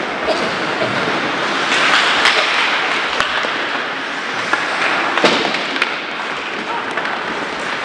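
Ice hockey game sound at the rink: a steady hiss of play with sharp clacks of sticks, puck and boards scattered through it, a few of them standing out.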